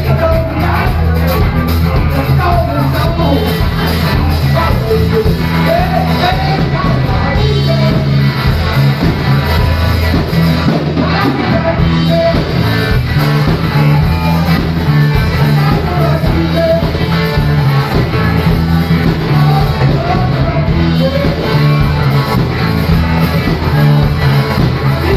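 Live rock band playing loud: electric guitars over a steady bass line and drum kit.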